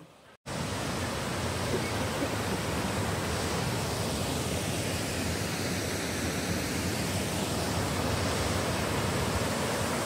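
Steady rush of falling water from a waterfall: an even noise spread across low and high pitches that holds level, starting about half a second in after a brief silence.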